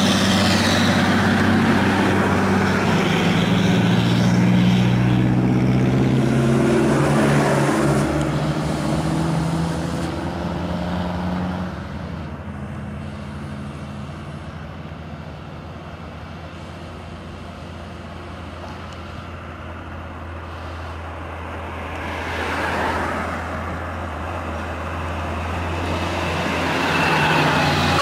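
Heavily loaded diesel trucks climbing the road and passing close by. A Mitsubishi Fuso truck's engine is loud for the first ten seconds or so, then fades to quieter traffic noise. Near the end a Hino truck's engine swells in as it passes.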